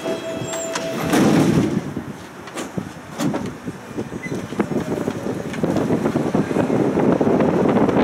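A tram's door warning tone sounds and stops about a second in. The doors shut with a loud thud just after it, and the tram pulls away, its running noise building over the last few seconds.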